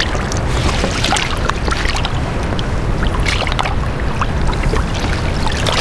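Water lapping and splashing against a fishing kayak's hull in many short, irregular splashes, over a steady low rumble of wind on the microphone.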